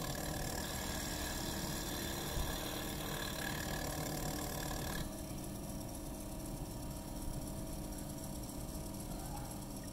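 Glass engraving lathe running steadily, its wet wheel grinding into a thick glass sheet held against it. About five seconds in the grinding stops and only the lathe's motor hum continues.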